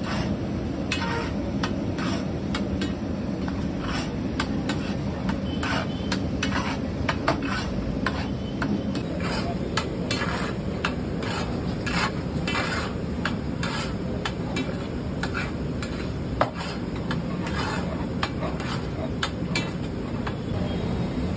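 Metal pav bhaji masher scraping and pressing against a large flat iron tawa in repeated, irregular strokes, about two a second, as the bhaji is mashed and mixed. A steady low background noise runs beneath.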